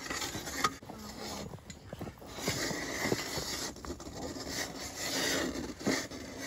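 Hand-cranked ice auger's blades cutting down through pond ice, a continuous scraping grind that swells and fades unevenly as it is turned.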